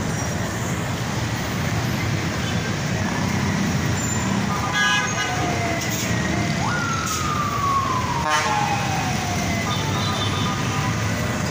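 Heavy, slow city traffic with many engines running, horns tooting briefly about five and eight seconds in. Between the horns a siren jumps up in pitch and then falls slowly.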